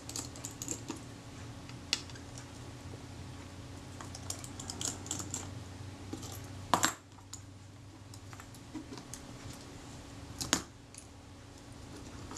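Small metal clicks and scrapes of screws being worked out of the front plate of a Kodak Retina IIIS camera with a small screwdriver, with two sharper clicks about seven and ten and a half seconds in, over a low steady hum.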